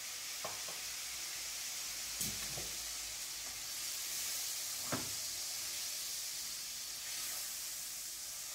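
Floured chicken breasts sizzling steadily in a frying pan as splashed-in brandy cooks off. A few light clicks of a fork against the pan, the sharpest about five seconds in.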